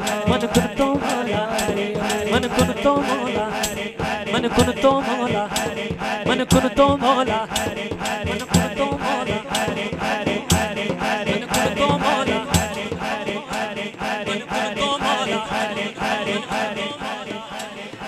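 Devotional music: voices singing a drawn-out chanted line over a steady, rattling percussion beat. The singing thins out in the last few seconds.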